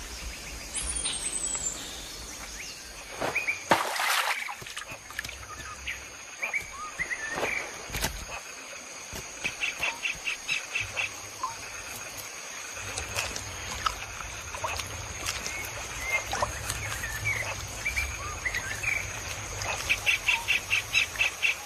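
Forest ambience with assorted birds chirping and calling over a steady high-pitched hum. Twice, once midway and once near the end, a rapid run of repeated notes, several a second, stands out. A few brief louder sounds come in the first several seconds.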